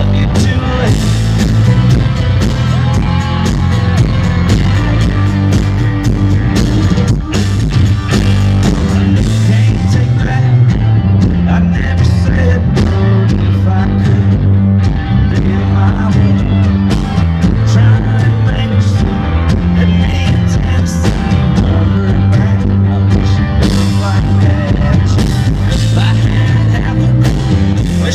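A live country band playing loudly through a concert sound system, with heavy bass and a steady drum beat.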